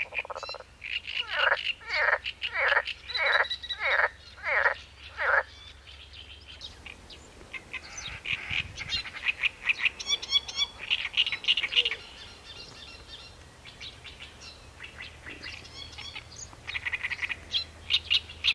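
Frogs croaking and birds calling at a lake: a run of about seven falling calls, one every half second or so, in the first five seconds, then bouts of rapid pulsed calls later on.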